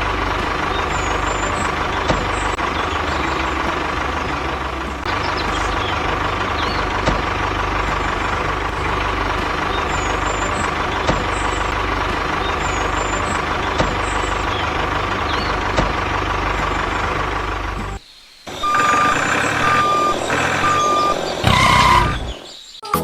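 Heavy vehicle engine running steadily with a high steady tone over it. It cuts off about three quarters of the way through, followed by a few short, evenly spaced beeps like a reversing alarm.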